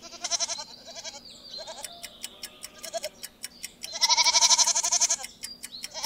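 Goat bleating: a few short, quieter quavering bleats, then one long, loud bleat about four seconds in. Under it, a fast ticking of about five ticks a second.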